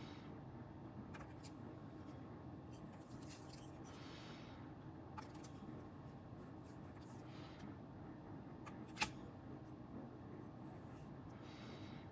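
Faint, intermittent scratching of a small hand carving tool working polymer clay through a plastic stencil, with a few sharp clicks, the loudest about nine seconds in.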